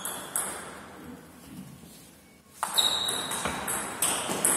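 Table tennis rally: the celluloid ball clicking off the paddles and the table, with a quieter gap before the rally picks up at a brisk pace a bit past halfway. A short high squeak comes just as the rally starts.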